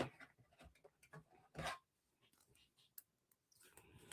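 Faint handling of trading cards and their packaging: a short soft rustle about one and a half seconds in, then a few light clicks and ticks.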